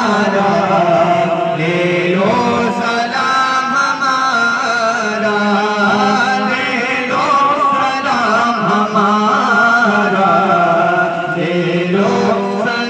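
A man singing an Urdu salam, a devotional salutation to the Prophet, into a microphone as a slow melodic chant with long held notes. The standing crowd sings along with him.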